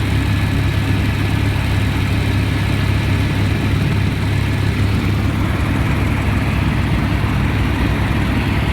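Helicopter engine and rotor noise heard from inside the cabin: a steady, loud drone with a strong low hum and a fast, even pulsing from the rotor blades.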